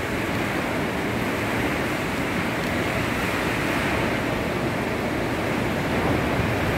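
Heavy monsoon rain pouring down in a steady, dense hiss.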